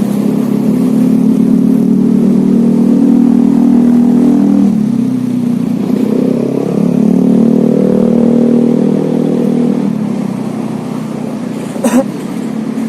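A motor vehicle's engine running close by and changing speed: its pitch drops about four and a half seconds in, climbs back a second or so later, and falls again near ten seconds. A sharp click comes near the end.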